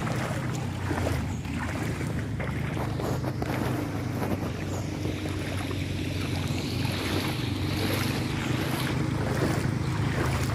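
A vehicle's engine running steadily while water splashes and churns around it as it moves through floodwater on a road.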